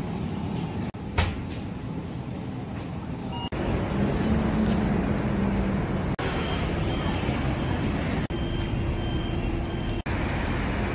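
Steady rumble of heavy city road traffic, buses and cars, with a short sharp click about a second in. The background changes abruptly several times.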